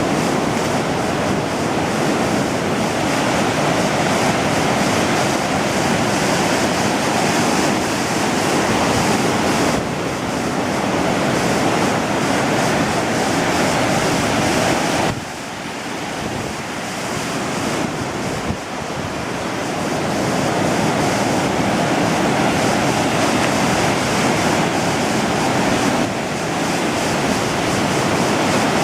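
Ocean surf washing onto a beach, with wind buffeting the microphone. The level drops suddenly about halfway through and builds back up over a few seconds.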